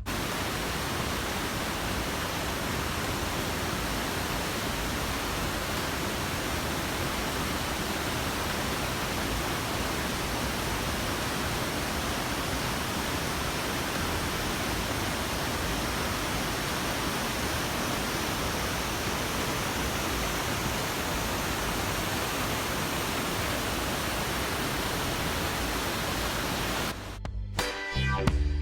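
Steady, even rush of falling water from a waterfall. Music comes in near the end.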